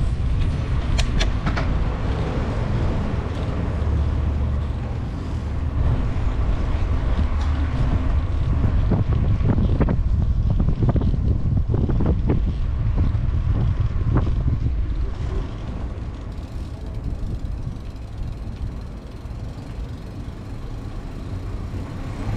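Wind rumbling on the microphone of a moving bicycle, over the noise of bicycle tyres rolling on paved lanes. Scattered knocks and clicks come from bumps, most of them between about nine and fourteen seconds in. The rumble eases off in the last few seconds.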